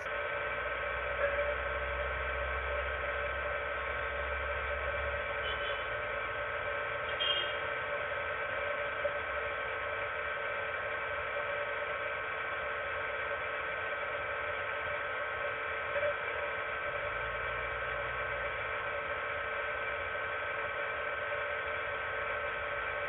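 Steady electrical hum and whine made of several held tones over a hiss, with a low rumble in the first few seconds and again later, and a few faint clicks.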